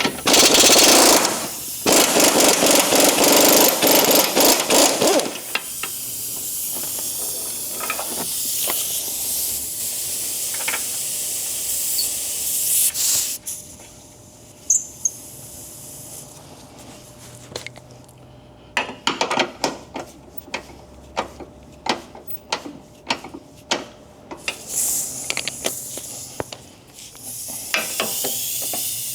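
Impact wrench hammering as it loosens subframe bolts, in two long bursts of rapid strokes, about two seconds in and again near twenty seconds in, with a hiss and scattered clicks between them.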